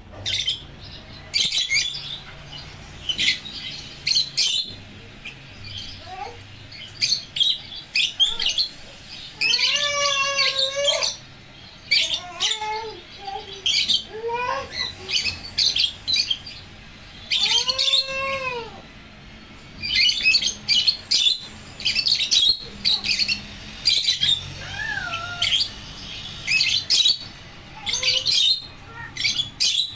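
Pet African lovebirds and a cockatiel calling: rapid, shrill chirps throughout, broken twice by a longer, lower arching call with a rise and fall in pitch.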